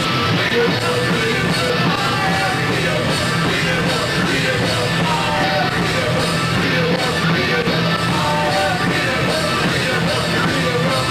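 Live rock band playing loud and steady, with a singer's voice over the instruments.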